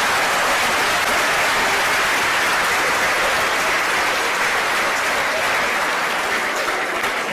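Audience applause, a dense steady clapping from a large crowd, easing off slightly near the end.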